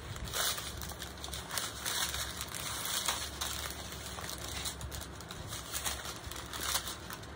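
Small clear plastic bags of diamond-painting drills crinkling and rustling as they are handled, in many short irregular crackles.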